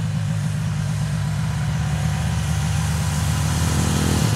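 Small Arctic Cat 120 youth snowmobile engine running steadily as the sled drives over snow. Its note changes a little past four seconds.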